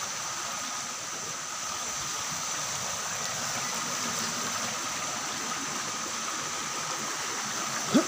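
Stream water rushing steadily over rock slabs and small cascades, an even hiss.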